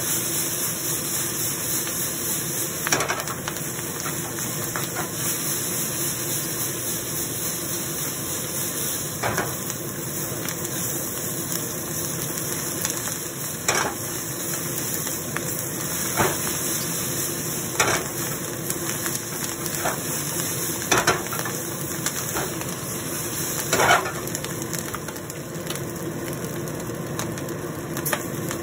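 Fried rice sizzling in a wok over a gas flame while it is stirred and turned with a plastic spatula, with a steady hiss and the spatula knocking against the pan every few seconds.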